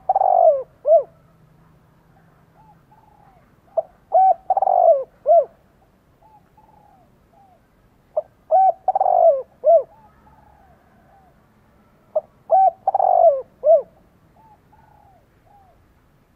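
Male spotted dove cooing in the fast, insistent 'thúc gù' style used by a call bird to provoke wild rival males. Each phrase is a few short notes around one longer falling note, repeated four times about every four seconds, with softer coos in between.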